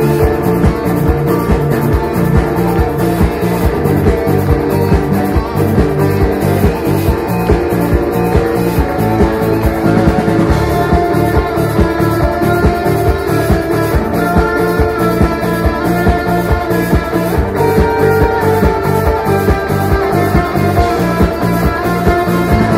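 Live rock band playing an instrumental passage: electric guitar over strummed acoustic guitar, with a steady drum beat.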